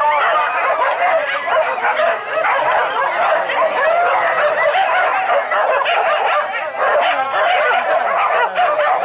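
A pack of hunting dogs yelping and baying without a break, many voices overlapping: the pack in full cry on a wild boar.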